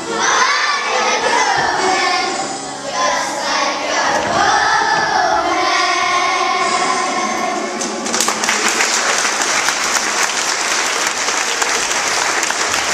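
A group of children singing together in unison. About eight seconds in, the singing gives way to audience applause.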